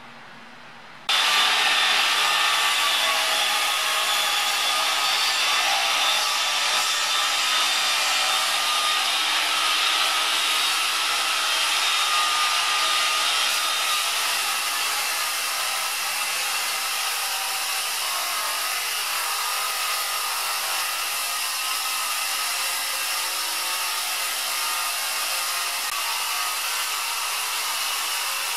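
Bosch circular saw with a 56-tooth Diablo non-ferrous blade running steadily while cutting a long length of aluminium. The sound starts abruptly about a second in and holds even from then on.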